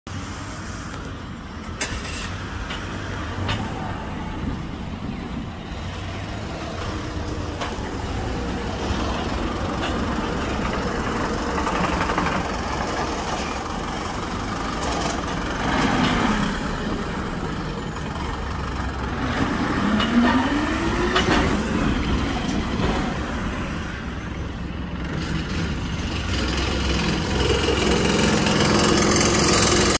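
Road traffic with a light box truck and then a bus driving past close by, their engines running. About two-thirds of the way in, one engine revs up with a rising pitch, and the sound grows louder near the end as the bus comes alongside.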